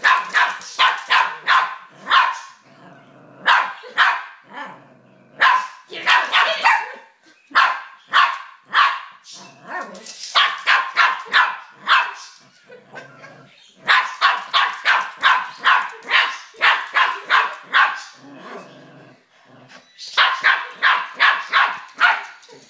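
Small dogs barking fast and sharply at a toy helicopter. The barks come in runs of several a second, each run lasting a few seconds, with short breaks between.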